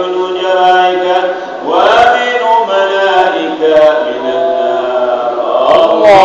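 A man chanting an Arabic du'a (supplication) in long, drawn-out melodic phrases, with a rising slide in pitch about two seconds in.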